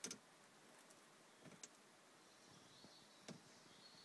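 Near silence: room tone with a few faint clicks and knocks, the loudest right at the start. A faint high steady whine comes in about halfway through.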